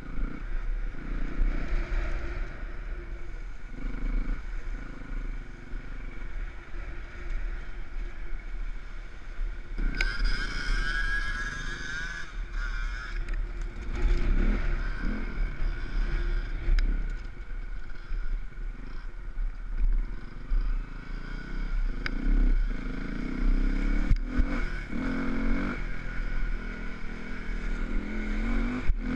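Enduro motorcycle engine riding off-road, its revs rising and falling repeatedly as the throttle is worked, with occasional sharp knocks and clatter from the bike over rough ground.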